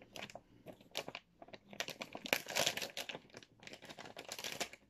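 Clear plastic wrapping being torn and crumpled off a small perfume box: rapid, irregular crackling in quick clusters, busiest around the middle.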